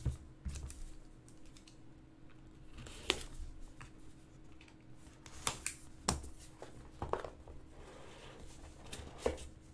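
A sealed cardboard trading-card hobby box being opened by hand: a small knife slitting its plastic shrink wrap, with scattered sharp clicks, taps and crinkles of cardboard and plastic being handled.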